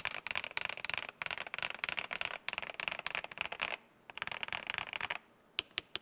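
Fast typing on an MK870 TKL mechanical keyboard, modded with tactile switches and PBT keycaps, on its aluminium plate in a plastic case. The typing comes in bursts with short pauses, and about five seconds in it changes to a run of evenly spaced single presses of the spacebar.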